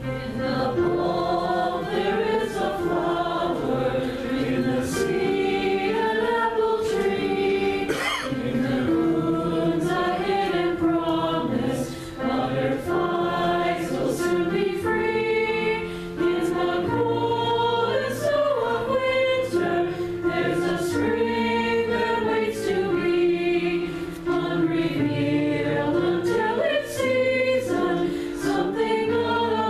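A congregation singing a hymn together, with keyboard accompaniment.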